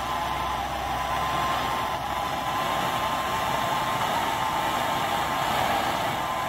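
BernzOmatic hand torch burning with a steady hiss, its flame heating an aluminium ATV shock body to loosen the threaded compression valve assembly.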